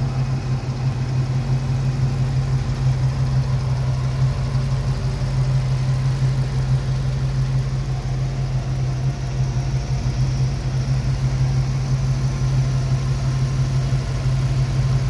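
Modified 2007 Dodge Charger HEMI V8, fitted with a cold-air intake and a 90 mm aftermarket throttle body, idling steadily with no revving.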